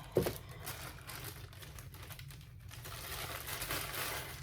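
Packaging being handled during an unboxing: plastic and cardboard rustling and crinkling, with a sharp knock just after the start, the rustle growing busier towards the end.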